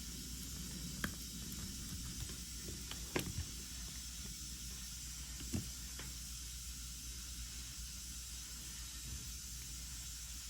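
Steady faint hiss with a few small sharp clicks and taps, about one, three and five and a half seconds in, from hand-soldering work on a small circuit board.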